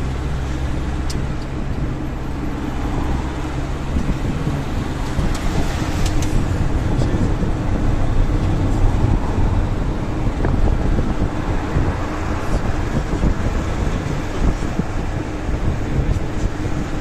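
Steady engine drone and tyre-on-road noise heard from inside a moving vehicle's cabin.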